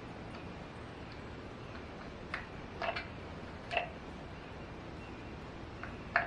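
A handful of light, irregular clicks and taps, about four, the loudest near the end, over a steady low hiss: small parts being handled while the O-rings on the oil filter housing cap are swapped.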